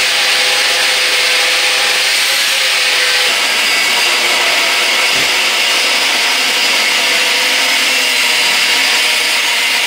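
Angle grinder with a thin cutting disc running steadily under load, its disc cutting into thick steel section: one continuous, even, high cutting noise with a faint steady motor whine beneath.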